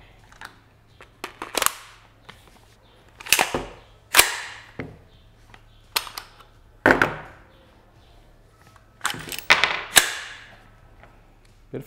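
Action of a Taurus T4 AR-pattern carbine in .300 Blackout being cycled by hand. The bolt carrier is worked back and forward, giving a series of sharp metallic clacks, loudest about four, seven and ten seconds in.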